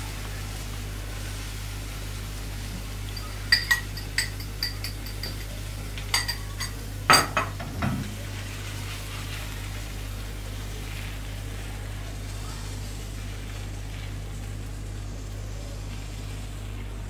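A metal spoon clinking against a small ceramic bowl a dozen or so times over about four seconds while the last of the beaten egg is scraped out into the frying pan, ending with a louder clink and a low knock as the bowl is set down. A steady low hum and faint hiss run underneath.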